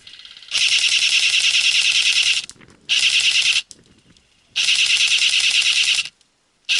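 Airsoft rifle firing on full auto close by, as a rapid, buzzing chatter of shots in long bursts. There are three bursts of about two, one and one and a half seconds, and a fourth begins near the end.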